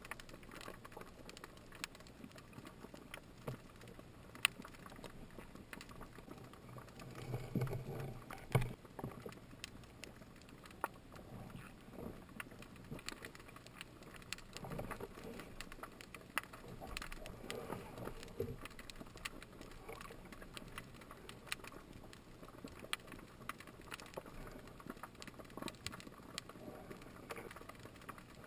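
Underwater ambience heard through a diving camera: a low hiss with scattered sharp clicks and crackles all through, and a few muffled low rumbles, the strongest about eight seconds in.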